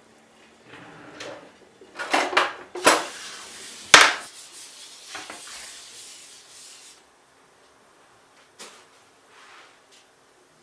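Kitchen handling noises: a few sharp clacks and knocks of containers and cookware, the loudest about 4 s in, then a paper towel rubbing oil over a nonstick griddle pan until about 7 s, followed by a couple of faint clicks.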